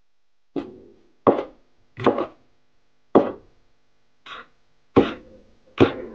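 Chef's knife chopping garlic cloves on a bamboo cutting board: about seven sharp knocks of the blade striking the board, roughly one every three-quarters of a second, starting about half a second in, each with a brief woody ring.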